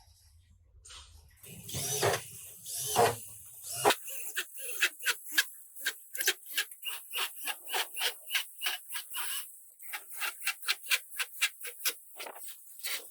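Hand sanding or rasping on a car body panel. A louder stretch of rubbing with a low hum comes in the first few seconds, then quick, even back-and-forth strokes follow at about four a second, with a short pause about two-thirds of the way through.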